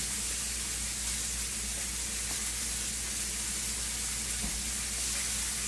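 Steady sizzle of food frying in a pan, with a low steady hum underneath.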